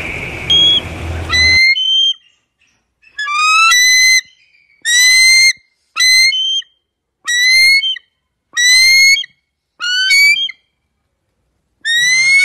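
An eagle calling: a string of seven short, shrill, slightly rising calls, roughly one every second or so, after the tail of a longer whistled call that fades out near the start.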